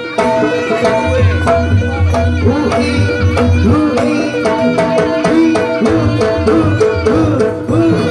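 Traditional East Javanese jaranan gamelan music: a lively hand-played kendang drum pattern with pitch-bending strokes over steady sustained melodic tones, played loud and continuous.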